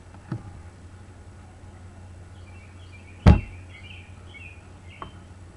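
A single sharp thump a little over three seconds in, with lighter clicks before and after it, and birds chirping.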